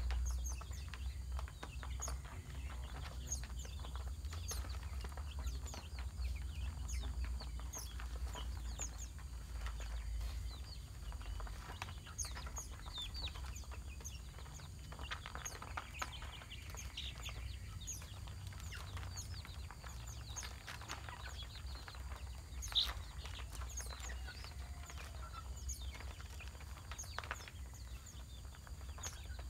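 Chickens clucking, with small birds chirping in quick short notes throughout, over a steady low rumble.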